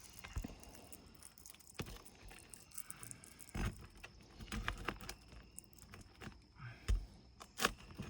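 Scattered knocks, taps and scrapes of hand tools and asphalt shingles being worked on a roof during shingle removal, with a few sharper knocks spread through.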